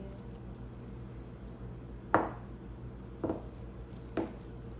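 Three sharp metallic clinks about a second apart from a cat wand toy's bells and balls as it is knocked about.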